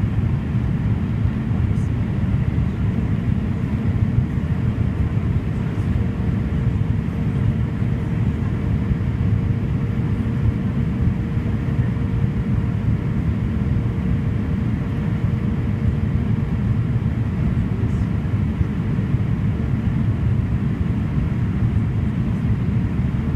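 Steady cabin drone of a Fokker 50's twin turboprop engines and propellers, heard from a seat by the wing on approach to landing, with a faint steady hum running through most of it and fading out near the end.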